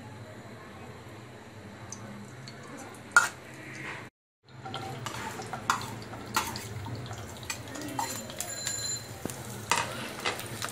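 Chopped onion frying in a nonstick pan, stirred with a metal spatula: clicks and scrapes of the spatula on the pan over a light sizzle. A single sharp knock comes about three seconds in, the loudest moment, and the sound drops out briefly about four seconds in.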